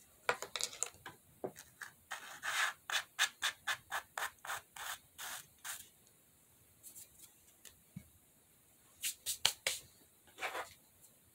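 A run of quick rubbing strokes, about two a second, lasting several seconds, then a few more near the end.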